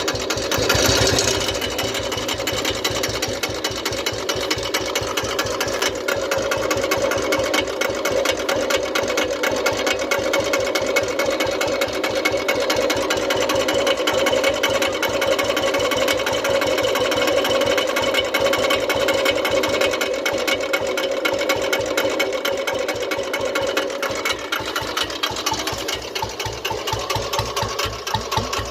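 Old-model Royal Enfield Bullet single-cylinder engine running with a fast, even rattling knock, briefly louder about a second in. This is the piston pin knock that the mechanic diagnoses.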